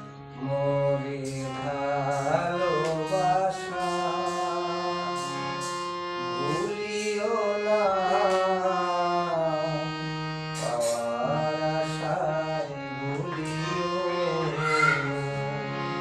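Harmonium playing held chords and melody, with a man singing a Bengali song over it in long phrases that slide between notes.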